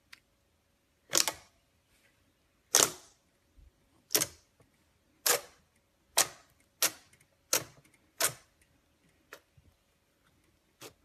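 Glossy slime being poked and pressed with fingertips, giving about eight sharp pops from air pockets, a second or so apart and coming quicker after the middle, then a few fainter clicks near the end.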